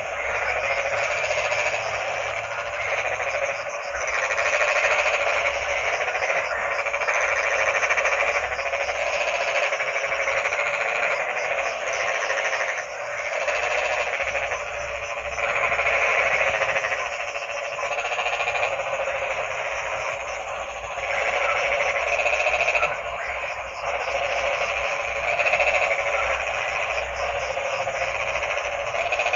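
A dense chorus of many frogs croaking at once, a continuous trilling din that swells and dips every few seconds.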